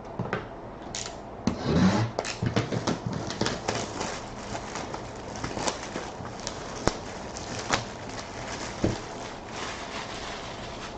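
Hands opening a sealed hockey jersey box: plastic wrap and cardboard crinkling and tearing, loudest about two seconds in, then a long run of irregular crackles and clicks.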